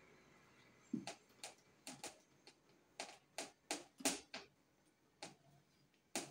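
About a dozen quick, faint brushing strokes against a whiteboard as the board is wiped by hand. They start about a second in, come two or three a second, and pause briefly before a last stroke near the end.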